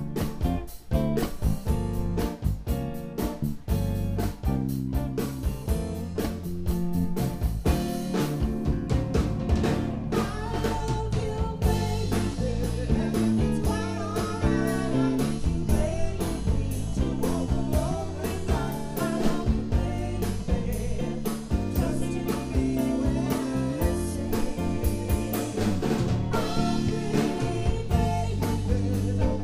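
Live band music: electric guitar, bass guitar and drum kit playing, with a woman's voice singing over them from about ten seconds in.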